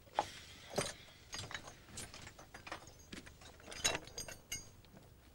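Someone rummaging through a shed, handling and shifting objects: a run of irregular clicks, clinks and knocks.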